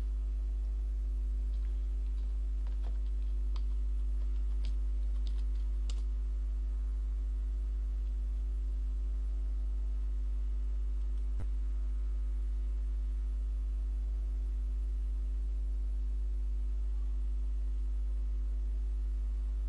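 Computer keyboard being typed on in short runs of keystrokes for about the first six seconds, then a single sharp click about halfway through. A steady low hum runs underneath throughout and is the loudest sound.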